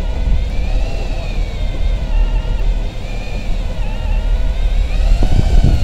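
Electric deep-drop fishing reel's motor whining as it winds in a hooked fish, its pitch wavering up and down with the load, over a heavy low rumble.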